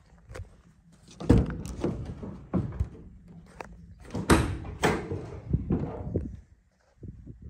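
Rear doors of a Peugeot Boxer panel van being unlatched and swung open: a string of metallic clunks and knocks from the handle, latches and door panels. The loudest come about a second in and again a little past four seconds.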